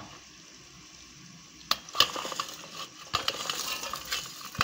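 Peeled garlic cloves, shallots and fennel seeds being pushed off a steel plate into a steel mixer-grinder jar: a few sharp clinks against the metal and light rattling as they drop in, starting after about a second and a half of near quiet.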